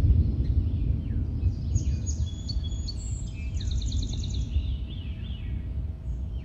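Several birds calling, with short down-slurred chirps and, about halfway through, a fast trill of repeated high notes. Under them runs a steady low rumble and a faint steady hum.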